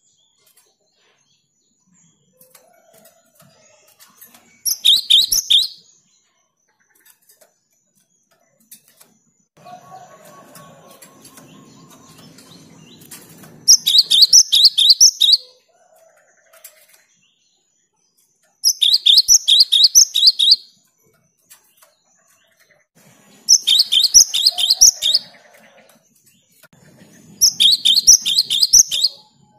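Cinereous tit (gelatik batu) singing in full voice: five bursts of rapid, high, repeated notes, each lasting one to two seconds, with pauses of several seconds between them.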